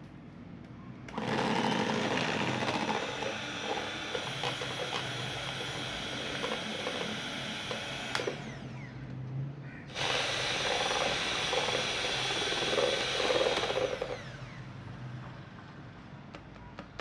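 Electric hand mixer running, its two wire beaters whipping a thick white mixture in a plastic bowl: a steady motor hum under whirring and churning. It is loud from about a second in until about eight seconds, and again from about ten seconds to fourteen, and quieter between and after.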